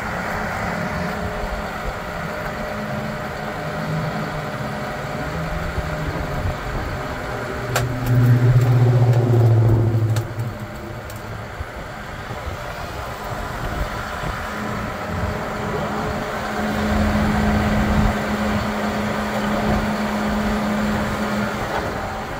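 Diesel tractor engine idling steadily, with a louder, deeper rumble for a couple of seconds starting about eight seconds in.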